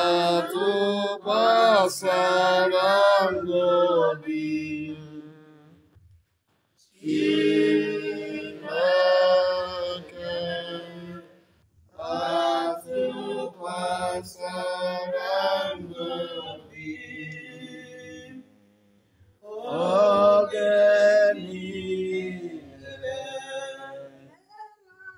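Unaccompanied singing in four phrases, with short pauses between them.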